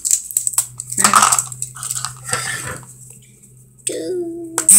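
Small hard plastic Squishy Pops capsule being pried and pulled open by hand after a scissor cut: a run of small clicks and crinkling rustles, with a brief steady tone near the end.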